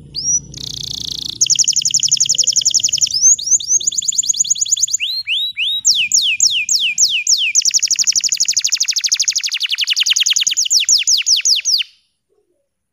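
Domestic canary, a green colour variety, singing a long song of fast trills: a short note about half a second in, then rapid repeated-note phrases that shift from one trill to the next. The song stops abruptly about a second before the end.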